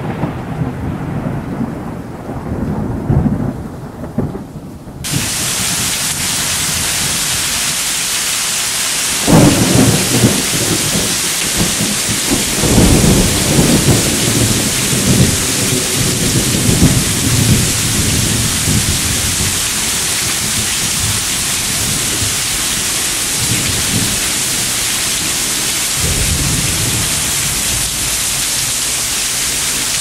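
Thunderstorm at night: low rolling thunder, then about five seconds in a heavy downpour starts suddenly as a steady hiss of rain. Several more rolls of thunder come over it, the loudest from about nine to seventeen seconds in and another near the end.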